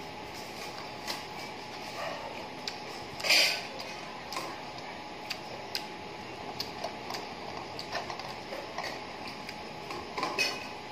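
Eating by hand: scattered small clicks and mouth sounds, with two short, louder crackling noises, one about three seconds in and one near the end, over a steady low hiss.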